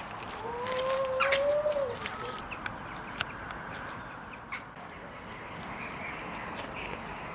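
A single drawn-out bird call lasting about a second and a half, rising slightly and dropping at the end, followed by a few faint clicks.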